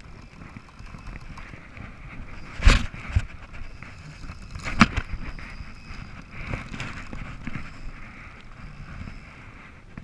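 Wind and choppy water on an open-water kayak, with two sharp knocks about three and five seconds in and a smaller one just after the first.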